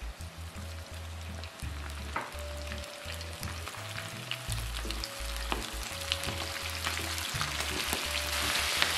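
Battered squid pieces deep-frying in hot oil, about 220 °C: a steady sizzle scattered with sharp crackles and pops, getting louder toward the end.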